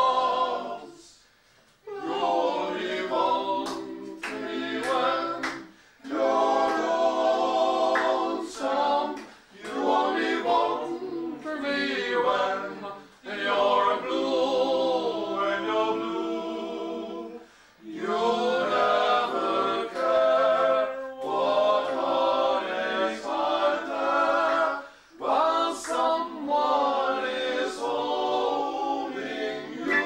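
Male vocal group singing a cappella, several voices in harmony, in phrases broken by short pauses about every three to four seconds.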